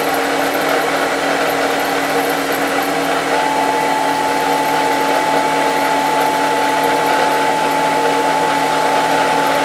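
Wood lathe running steadily, its motor spinning a wooden spindle blank while the CNC-driven tool traverses in the air ahead of the cut, not yet touching the wood. A steady higher whine joins about three seconds in.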